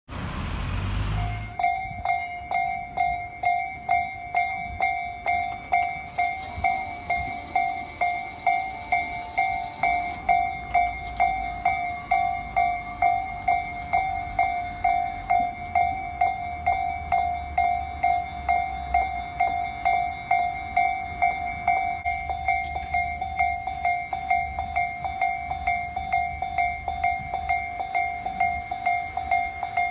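Japanese railway level-crossing alarm ringing its repeated electronic 'kan-kan' ding at a fast, even pace, starting about a second and a half in. A low rumble rises under it in the middle.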